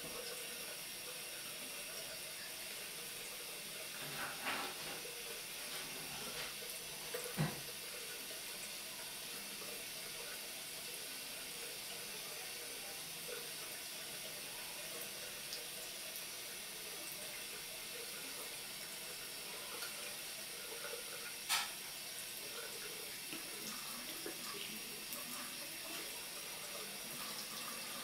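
Thin stream from a washbasin faucet running steadily into the sink and down the drain, with a few brief knocks, the loudest a little past seven seconds and again about two-thirds of the way through.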